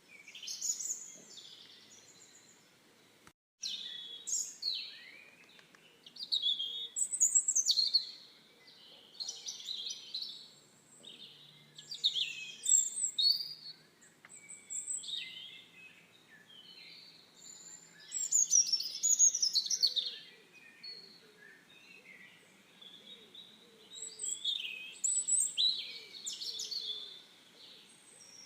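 Songbirds singing: short phrases of quick, high chirping notes, one after another every couple of seconds. The sound cuts out abruptly for a moment about three and a half seconds in.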